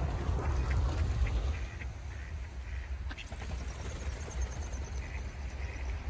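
Ducks quacking in a string of short calls over a steady low rumble.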